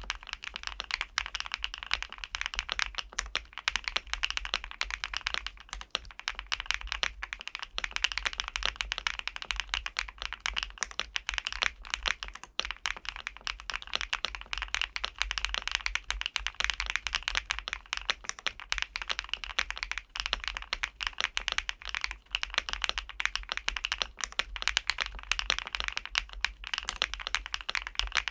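Continuous fast typing on a LUMINKEY75 V2 gasket-mounted aluminium-case mechanical keyboard: a dense stream of keystroke clacks.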